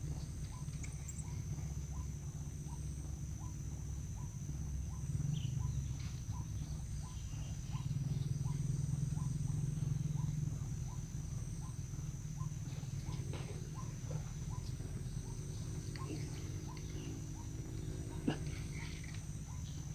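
Swamp ambience: a steady high insect drone and a call of short tocks repeated about twice a second, over a low rumble, with a sharp click near the end.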